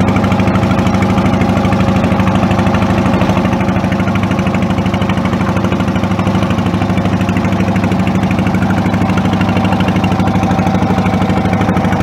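Boat engine running steadily at a constant speed, a loud, even low throb with no change in pace.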